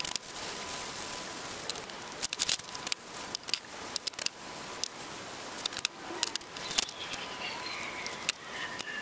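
Scattered sharp clicks and light crackling of hands handling the chuck's small metal jaws and their plastic packaging, irregular and without rhythm.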